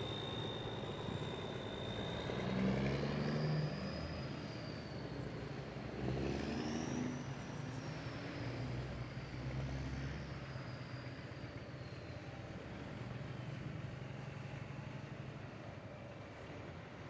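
Big-rig semi-truck diesel engines pulling away one after another, with two louder pulls about three and six seconds in. A high whine glides up and down above the engine sound.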